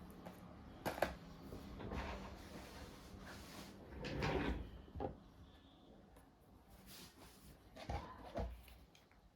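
Hard objects handled on a surface: a few separate knocks and a louder scraping slide about four seconds in, over a faint low hum.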